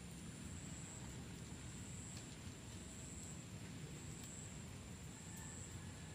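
Faint outdoor background: a steady low rumble with a thin, high insect whine above it that swells and fades.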